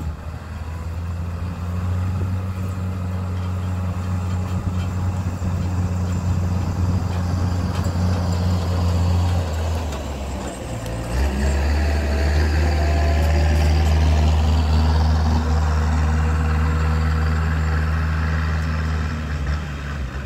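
Compact loader's engine running steadily as the machine drives across a field, a strong low hum. About ten seconds in the note dips briefly, then comes back slightly lower in pitch and louder.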